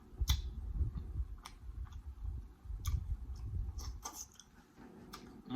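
Eating sounds from seafood being eaten: chewing with soft low thumps and scattered sharp clicks, a few per second at most.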